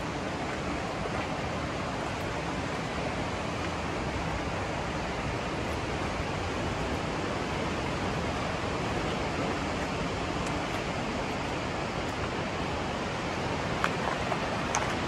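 Steady rush of waterfalls and a mountain torrent, an even roar with no change, with a few light clicks near the end.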